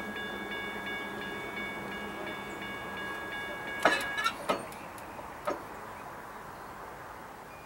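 Air horn of EMD SD70MAC CSX 4566 holding a long multi-note chord that cuts off about four seconds in, over the rumble of the approaching train. A few sharp knocks come just after the horn stops, and the train noise slowly fades.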